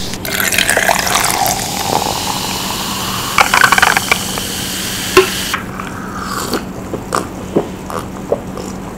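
Diet Coke fizzing as it is poured, a dense crackling hiss that cuts off suddenly about five and a half seconds in; a few soft clicks follow.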